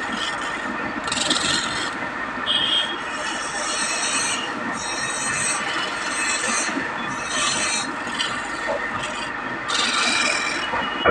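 Hand rasping or abrading of wood: uneven scraping strokes, each under a second long, coming about once a second over a steady hiss.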